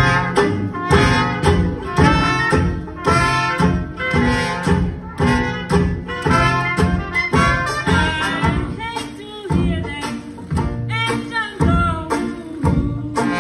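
Traditional New Orleans jazz band playing live, the whole ensemble coming in abruptly: cornet, trombone and clarinet lines over a tuba bass and a steady beat.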